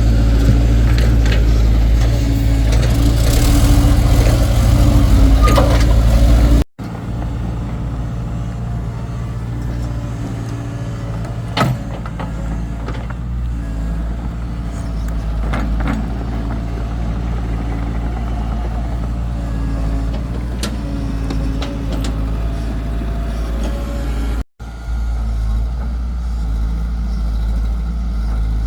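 Excavator engine running steadily under load, with a few sharp knocks from the machine's working parts. The engine is louder for the first several seconds, and the sound cuts out briefly twice at edits.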